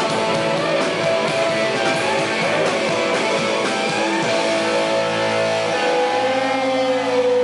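Live rock band playing loud: strummed electric guitar with drums, the guitar notes held out toward the end.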